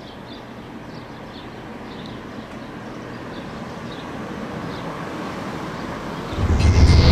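A steady rushing noise, slowly getting louder, then music with a deep bass and a falling sweep cuts in about six seconds in and is the loudest part.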